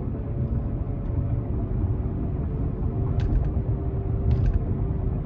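Car driving with a bad wheel bearing: a steady low rumble with a humming drone from the worn bearing, a sign it needs replacing. Two brief clusters of light clicks, about three and four and a half seconds in.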